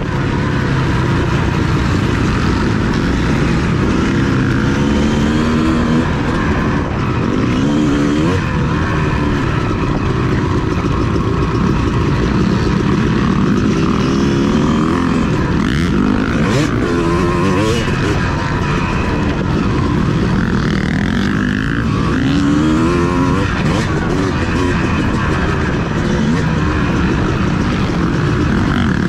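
Motocross bike engine running hard and revving up and down over and over, its pitch rising and falling with each turn of the throttle.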